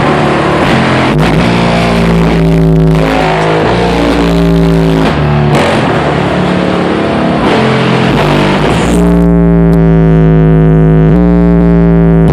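Loud rock music with distorted guitar played through a car stereo driving two Sundown Audio SA 12-inch subwoofers on a 1,000-watt RMS amplifier, with heavy sustained bass notes.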